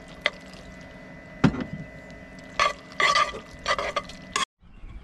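A spoon knocking and scraping in a pan as sauce is stirred into cooked pasta: a sharp knock about a second and a half in, then several short wet scraping bursts, over a steady hum. The sound breaks off suddenly near the end.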